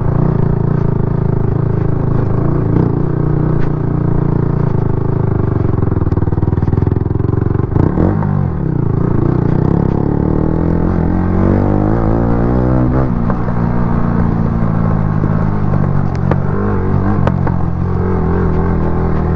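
Yamaha R15 V3's single-cylinder engine running through an aftermarket exhaust while riding, its pitch changing about eight seconds in and again around eleven to thirteen seconds in.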